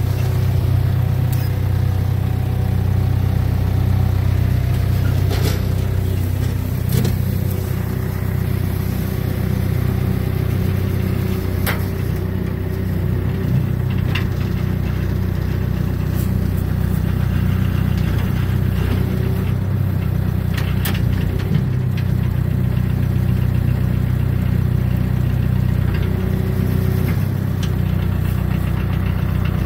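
Diesel engine of a yellow hydraulic log loader running steadily, heard from the open operator's station, with a few sharp knocks and clicks from the machine scattered through.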